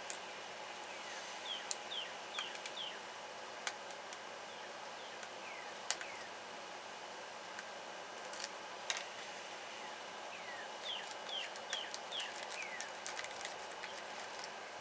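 Scattered light clicks and ticks of a lock pick and tension wrench working the pins of a Pac-Lock padlock. Two runs of four faint, short falling chirps sound in the background, one early and one late.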